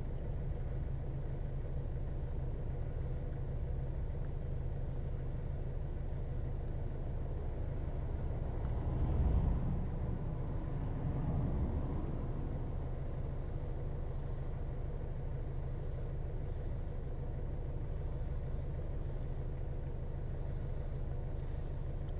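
Steady low background rumble, swelling briefly twice around the middle.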